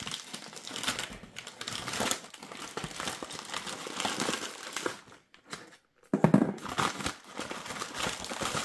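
Kraft-paper bag being peeled open and handled: paper crinkling and crackling with some tearing. It stops briefly about five seconds in, then starts again with a louder rustle and bump.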